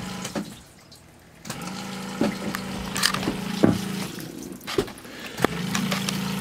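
A boat's electric freshwater pressure pump running with a steady hum, stopping about four seconds in and starting again a second and a half later, with water running and a few knocks. It keeps cycling because a supply hose has come off its fitting, so the pressurised fresh water pours out into the bilge.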